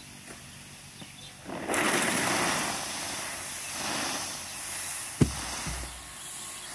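Fresh dates poured from a crate into a wide iron wok of boiling water, the first step of making dry dates (chhuhara). About a second and a half in, a loud rush of splashing and steam hiss sets in, then slowly dies away. There is a single sharp knock about five seconds in.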